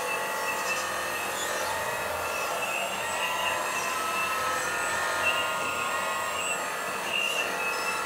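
Hydraulic pumps of two 1/12-scale RC hydraulic excavators whining as their booms, arms and buckets move together. Several whining tones step up and down in pitch as the load on the hydraulics changes.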